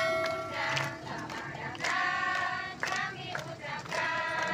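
A group of voices singing a welcome in held notes, with hands clapping along.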